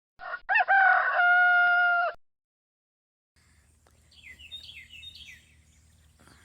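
A rooster crows once, loudly, ending in a long held note. After a short pause, a small bird chirps faintly several times over a low steady hum.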